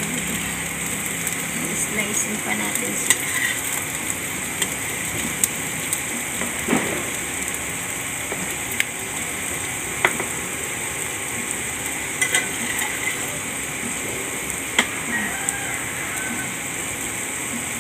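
Egg, hotdog and vegetable strips sizzling steadily in a nonstick frying pan, with a few sharp clicks of a metal spatula against the pan.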